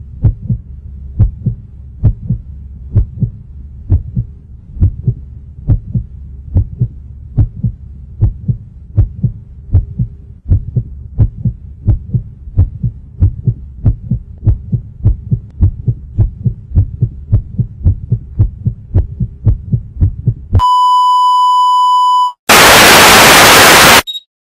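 Steady rhythmic low thumping, about two beats a second over a low hum, stopping about twenty seconds in. Then a steady high beep sounds for about two seconds, followed by a loud burst of hiss like static.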